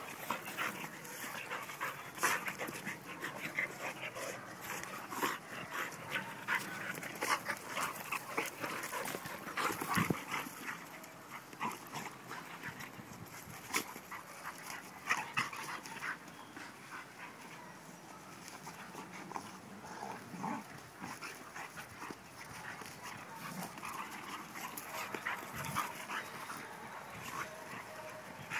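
A dog panting, among many short, irregular clicks and scuffling noises.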